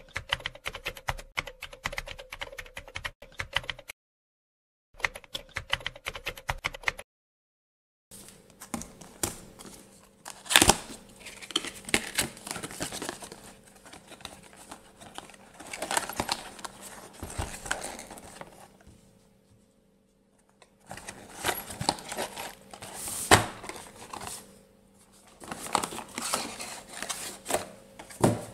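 Cardboard packaging being opened and handled: box flaps lifted, inner white boxes slid out and set down, giving irregular rustles, scrapes and knocks with short pauses, over a faint steady hum. Before it, for about the first seven seconds, comes a typewriter-style sound effect of rapid clicks, broken by a one-second gap.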